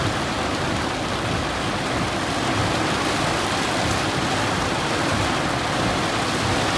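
Heavy rain beating on a car's roof and windshield, heard from inside the cabin as a steady, loud hiss.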